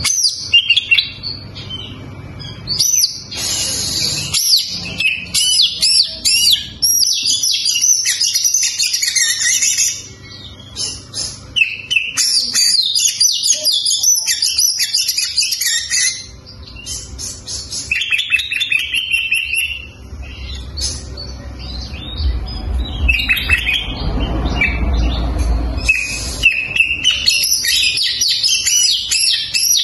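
Oriental magpie-robin (kacer) singing a fast, varied stream of high chirps, whistles and trills, broken by a few short pauses.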